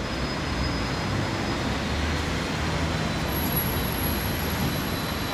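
City street traffic noise: a steady low rumble and hiss of passing vehicles, with an engine drone swelling about two seconds in.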